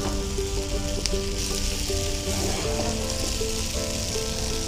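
Fried paneer pieces, bell peppers and onions sizzling in sauce in a frying pan as they are stirred with a wooden spatula, a steady hiss. Background music plays along with steady notes changing pitch.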